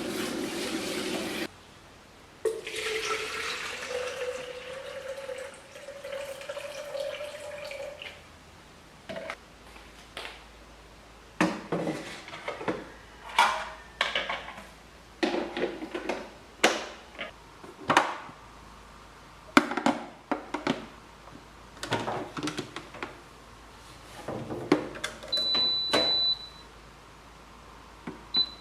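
Running tap water cuts off. Water then pours into a container, its pitch rising as the container fills. A string of knocks and clatters of kitchenware follows, with a single high beep about a second long near the end.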